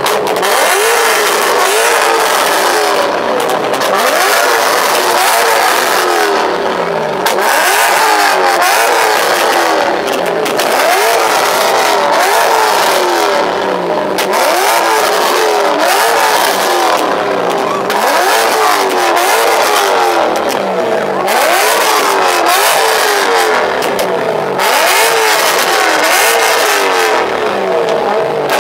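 Car engine revving hard over and over, its pitch climbing and dropping in quick repeated sweeps, with a constant loud noisy wash underneath.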